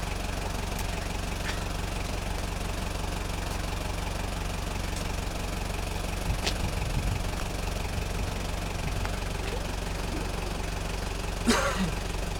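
An engine idling steadily with an even low hum. A brief louder sound stands out near the end.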